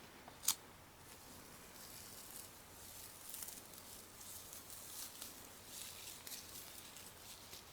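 A single sharp click about half a second in, then scattered faint crinkly rustling as material is handled.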